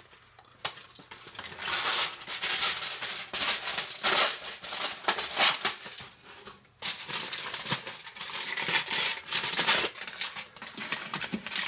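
Aluminium foil crinkling and rustling in irregular bursts as it is folded and pressed around a small Easy Bake Oven baking pan, with a short pause a little past halfway.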